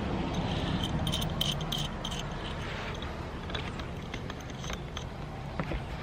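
Light clicks, rattling and scraping of small parts being handled, bunched about a second in, over a steady low rumble.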